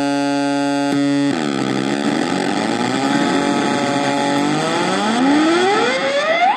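Homemade noise box built from two ultra-high-gain fuzz circuits and a primitive delay with feedback loops, running with no input. A steady buzzing drone changes about a second in into a wavering, gliding squeal. Near the end the squeal sweeps sharply upward in pitch and cuts off.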